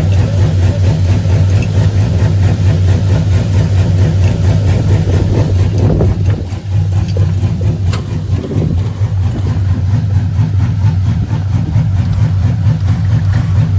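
A vehicle engine running steadily, a loud low hum with no change in speed.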